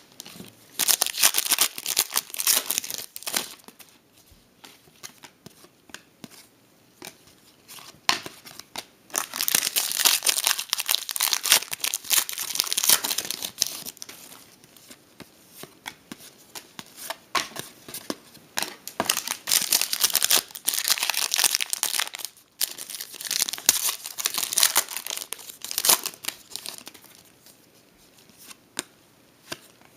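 Trading-card pack wrappers being torn open and crumpled, in several bursts of crinkling with quieter gaps between.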